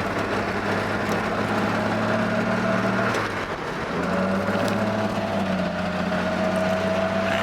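Pontiac 389 V8 running with a steady low drone that dips briefly about three seconds in, and a faint whine that rises slightly over the last few seconds. The engine has an exhaust leak at the manifold-to-downpipe flange, where the doughnut gasket is missing.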